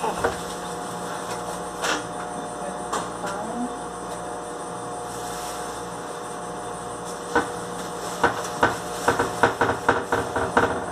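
Hard knocks and clatter of food containers and packages being set on refrigerator shelves: a few single knocks at first, then a quick run of many knocks in the last few seconds, over a steady hum.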